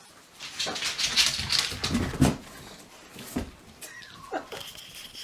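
A dog vocalising: a loud, noisy stretch in the first couple of seconds, then a few shorter calls that fall in pitch.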